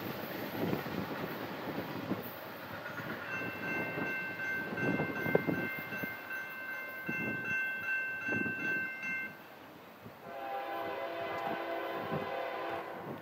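A diesel freight locomotive's horn sounding in the distance: a long steady blast, then after a short break a second, lower-sounding blast near the end, over a low rumble. A faint, evenly repeating ding, like a grade-crossing bell, runs under the first blast.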